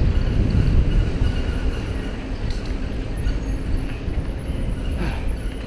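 Wind buffeting and road rumble on a bike-mounted camera's microphone while riding a mountain bike on a paved road. The rumble is loud and heavy and eases a little about two seconds in.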